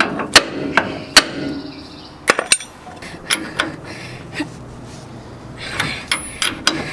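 Hammer striking a steel pitman arm puller on a truck's steering linkage, about five sharp ringing blows in the first two and a half seconds, to shock a seized pitman arm loose. After that only a few lighter metal clicks.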